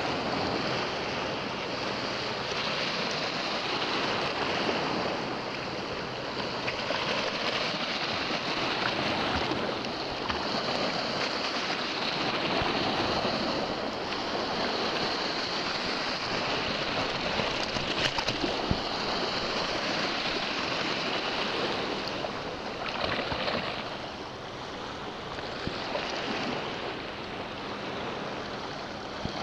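Small sea waves washing in and draining over a shallow rock shelf, a steady hiss of surf that swells and eases.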